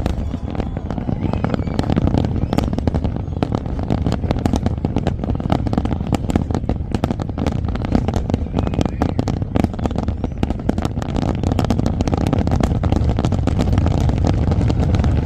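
Large fireworks display: a dense, continuous crackle of many rapid small bursts over a steady low booming from the bigger shells.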